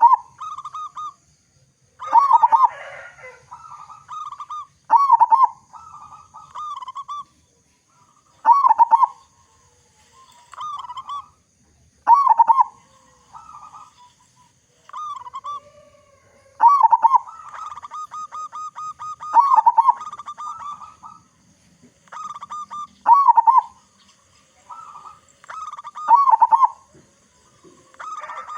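Local zebra dove (perkutut) with a big voice singing: loud, full coo phrases repeated every two to three seconds. A little past the middle comes a fast rolling run of notes.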